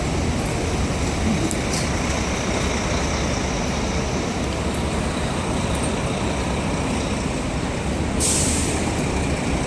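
Steady rumble of city street traffic and idling heavy vehicles. About eight seconds in, a sharp hiss of released air brakes lasts about a second.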